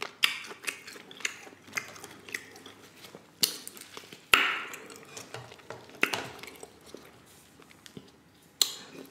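Close-miked handling of cooked king crab legs by gloved hands: scattered sharp cracks and clicks of shell, with a longer rasping tear about four seconds in as the meat is pulled apart. Near the end there are a couple of sharp clicks as kitchen shears are taken up.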